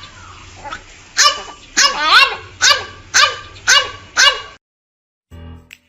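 A puppy yapping: about seven short, high yips at roughly two a second, stopping shortly before the end, when music begins.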